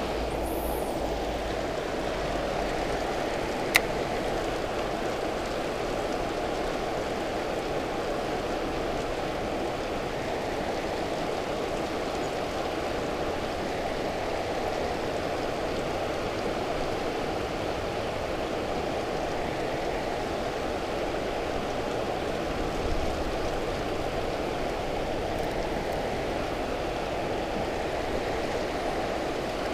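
Steady rush of water pouring through a dam spillway, with one sharp click about four seconds in.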